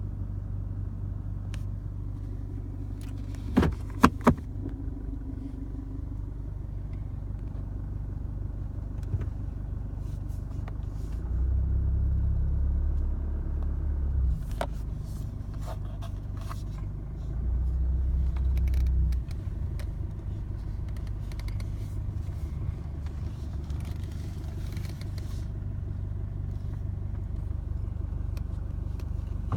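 2016 Chevrolet Colorado's 2.8L Duramax four-cylinder turbodiesel idling with a steady low rumble, swelling to a heavier rumble twice, for two to three seconds each time. A few sharp clicks come about four seconds in. The engine is showing a rough idle.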